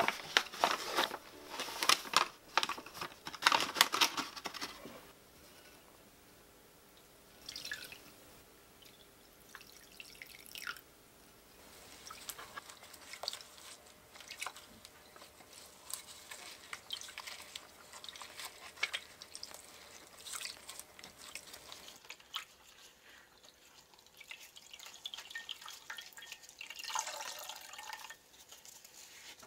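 Malt-filled cloth bag being kneaded and squeezed in a glass bowl of water, squishing and sloshing, with water dripping and trickling out of the cloth: malt water being extracted for sikhye. The handling is louder in the first few seconds and again near the end, as the bag is wrung out.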